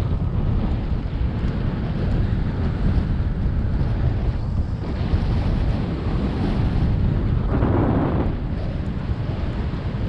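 Strong wind buffeting the microphone of a bike-mounted camera while riding at about 18 mph: a loud, steady low rumble, with a stronger gust a little before eight seconds in.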